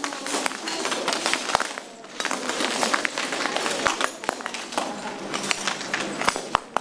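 Footsteps crunching over a floor of thin broken tiles: shards cracking, clinking and scraping underfoot in a dense run of sharp clicks, with a brief lull about two seconds in.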